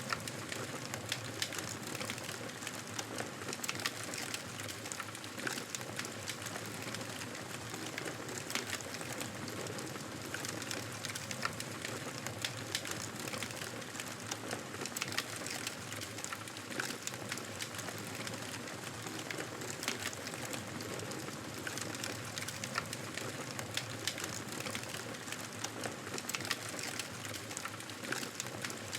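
Wood fire crackling in a fireplace: a steady low hiss with many small, irregular pops and crackles.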